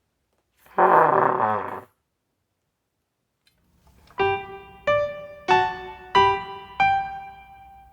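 A short, loud, buzzy comic sound-effect blat about a second in. A few seconds later a piano plays six single notes, one every two-thirds of a second or so, each ringing and fading.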